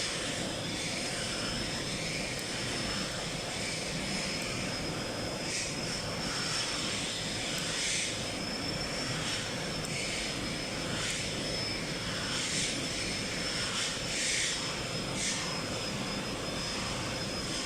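Steady drone of factory machinery with a constant high-pitched whine, and short hisses recurring every second or so.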